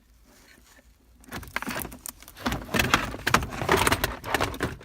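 Plastic trim panel being handled while the wiring connector on its cigarette lighter socket is unplugged: a quick run of clicks and plastic rattling that starts about a second in and grows denser and louder toward the end.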